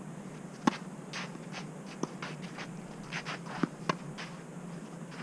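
Tennis rally on a clay court: a sharp crack of racket on ball for the serve less than a second in, then fainter hits about two seconds in and again near four seconds. Between the hits, shoes scuff on the clay.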